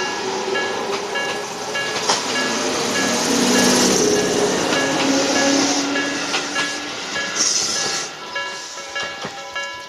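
Japanese level-crossing alarm sounding the 'Nikko' tone at slow tempo, a steady repeating electronic ding, while a train passes over the crossing. The train's running noise and wheel clatter swell to their loudest in the middle, with a sharp click about two seconds in and a brief high hiss near the end.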